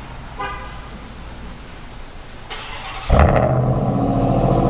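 Ram TRX's supercharged 6.2-litre Hemi V8 starting for the first time through a newly installed AWE 0FG exhaust: a short beep, then the starter turns briefly and the engine catches about three seconds in with a loud flare, settling into a steady idle rumble.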